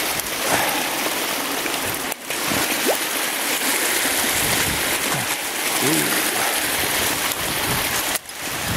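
Shallow water rushing steadily over a beaver dam crossover, with splashing as a trap and a caught muskrat are pulled up out of the current.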